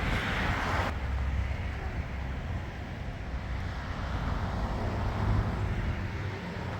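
Outdoor ambience: a steady low rumble under a soft hiss, the hiss dropping away suddenly about a second in.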